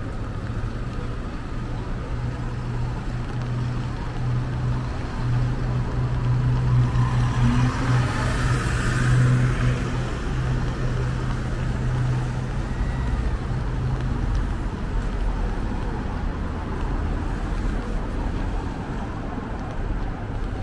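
A motor vehicle passing on a wet city street: a steady engine hum that swells to its loudest about eight to ten seconds in, with tyre hiss from the wet road. The hum fades out about fourteen seconds in, leaving general traffic noise.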